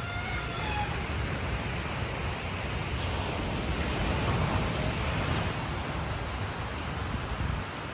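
Pacific Ocean surf: a steady wash of waves, swelling to a louder surge about four seconds in and easing again.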